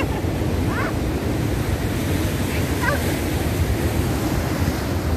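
Ocean surf churning and wind buffeting the microphone: a steady noise with a heavy low rumble.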